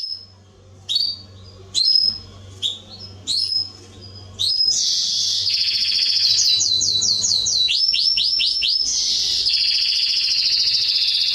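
Domestic canary singing: a few separate short whistled notes, then from about four and a half seconds in a continuous song of rapid trills and fast repeated notes. A faint steady low hum lies underneath.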